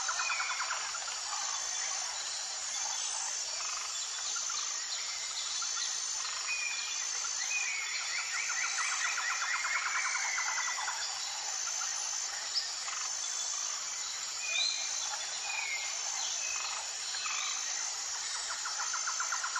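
Natural ambience of insects and birds: a high, even insect trill throughout, a rapid pulsing trill that swells around the middle of the stretch, and short bird chirps now and then.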